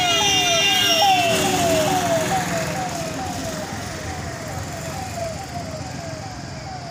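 A road vehicle's siren repeats a short falling whoop about twice a second, slowly fading. For the first second and a half a steady multi-note tone, like a horn, sounds over it, above a low traffic rumble.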